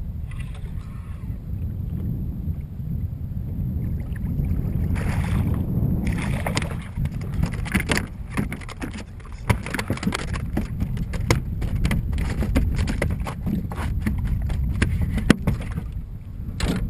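Steady low rumble of water and wind on a fishing kayak. From about six seconds in there is a long run of sharp clicks and light clatter as gear is handled close to the microphone.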